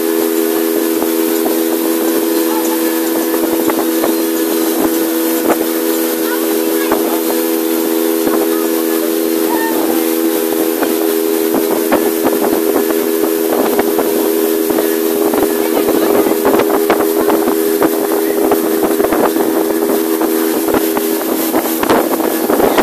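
Small open boat's outboard motor running at a steady cruising speed, an even drone with wind and rushing water hissing over it. It grows a little louder about two-thirds of the way through and again near the end.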